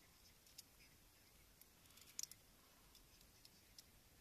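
Near silence with faint, scattered clicks of small gear being handled by hand, the sharpest a quick double click about two seconds in.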